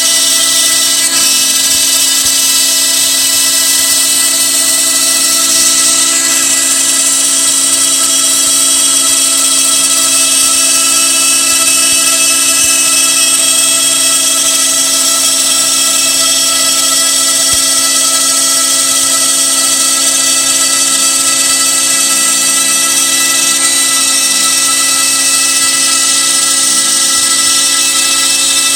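DeWalt DWP611 compact router on a Shapeoko 3 CNC machine spinning at high speed as its bit cuts MDF, with a Bucket Head shop vacuum pulling the dust through the dust shoe. A loud, steady whine with several held tones and no change in pitch.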